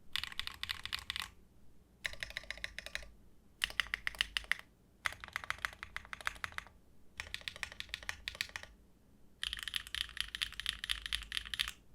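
Mechanical keyboard typing on a Neo Ergo built with factory-lubed HMX Retro FJ400 linear switches (T2 stems, PC top and PA66/fibreglass bottom housings), in six quick runs of keystrokes with short pauses between them. The board has no foam, and the builder hears some resonance from the case.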